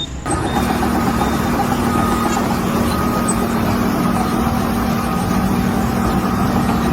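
An engine running steadily with a constant low hum, starting abruptly just after the beginning.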